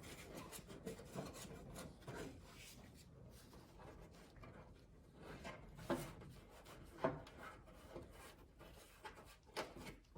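Faint rubbing and scattered small clicks of a plastic trunk lid garnish and its rubber wire grommet being handled and worked into place on the trunk lid.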